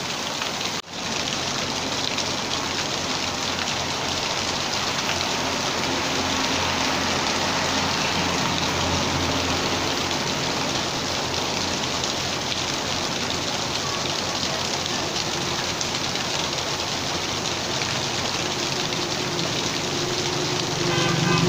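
Steady rain falling on hard surfaces, an even hiss with a brief dropout about a second in. A low hum joins near the end.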